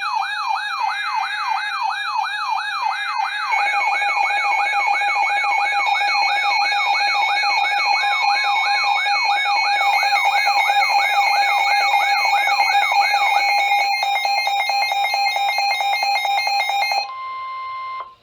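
Weather alert radio alarms sounding for an incoming warning: a siren-like whoop repeating about two and a half times a second over steady electronic tones, with more tones joining a few seconds in. The whooping stops near the end, leaving a single steady tone for about a second before it cuts off.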